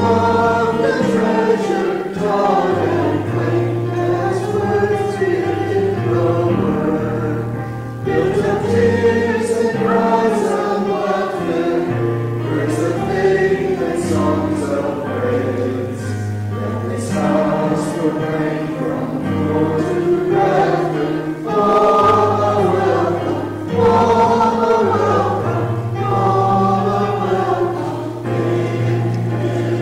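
Church congregation singing a hymn together, accompanied by piano, with short breaks between lines.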